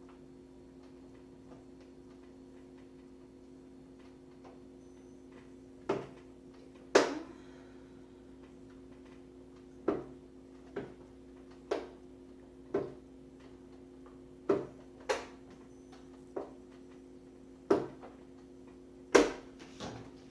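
Irregular sharp plastic clicks and taps, about a dozen, starting about six seconds in, as a screwdriver and hands work at the plastic trim of a microwave oven door. A steady low hum runs underneath.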